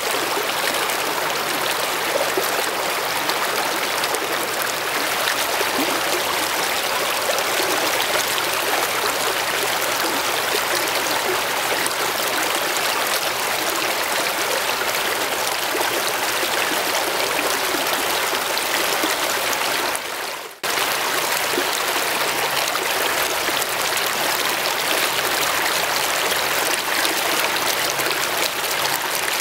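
Shallow creek running over rocks: a steady, even rush of water. About two-thirds of the way through it cuts out for an instant.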